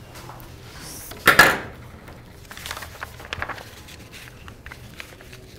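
A sharp knock about a second and a half in, then light clicks and rustles of things being handled on a desk.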